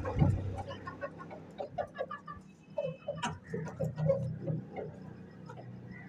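Chickens clucking in short, scattered notes, mixed with small clicks, a thump just after the start and a sharp click about three seconds in, over a low steady hum.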